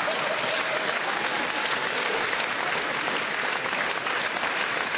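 Audience applauding: dense, steady clapping from a large crowd.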